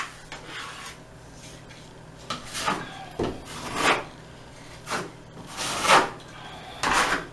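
A hand tool scraping and smoothing wet joint compound over a plaster wall patch in a series of short strokes, about one a second from about two seconds in.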